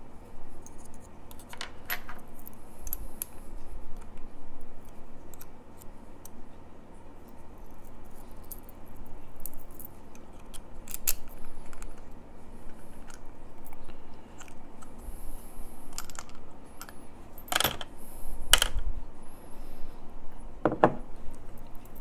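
Ingersoll CS lever padlock being taken apart by hand: scattered light metallic clicks and scrapes from the pick and the lock's parts, with three louder clacks in the last few seconds.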